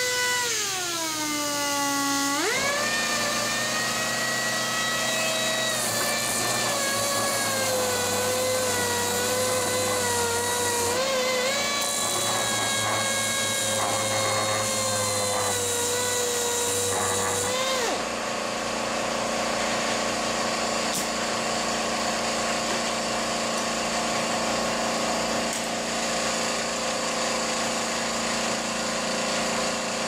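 3M Elite Series 28506 5-inch pneumatic random orbital sander running on air, a high whine with a hiss. Its pitch falls for about two seconds, jumps back up, and then holds fairly steady with small dips while it sands the board. About two-thirds of the way through the whine stops and a steadier mechanical hum with a hiss carries on.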